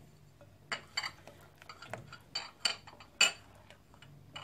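A spatula stirring a liquid cake batter of melted butter, eggs and sugar in a glass mixing bowl, knocking against the glass in about five sharp, ringing clinks, the loudest about three seconds in.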